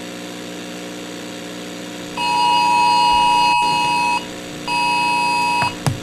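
A steady low electronic drone, with a loud electronic alert tone cutting in about two seconds in. The tone sounds as one long beep of about two seconds and then a shorter one of about a second, with a short click just before the end.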